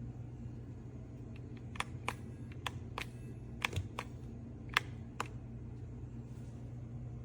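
About ten light, sharp clicks and taps over a few seconds, over a steady low hum.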